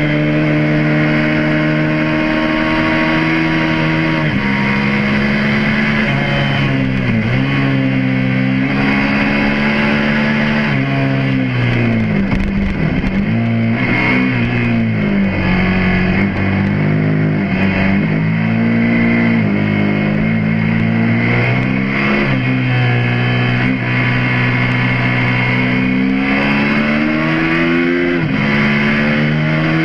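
Suzuki SV650S's 90-degree V-twin engine running hard on track, its pitch climbing as the bike accelerates and dropping back sharply as it shifts or slows for corners, several times over.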